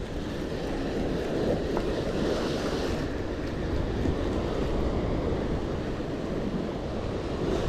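Ocean surf washing and breaking against sea-cliff rocks, a steady rush of water, with wind on the microphone.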